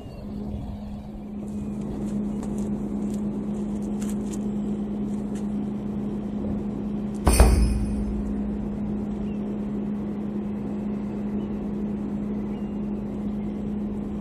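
Steady low engine hum at one constant pitch, from a boat idling in the harbour, over a rushing background noise. A single sharp thump about seven seconds in.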